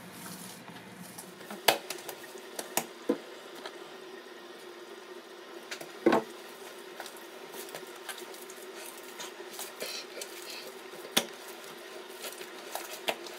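Hands kneading parotta dough on a granite countertop: soft squishing and pressing, with a few sharp knocks and slaps against the counter scattered through, the loudest about six seconds in.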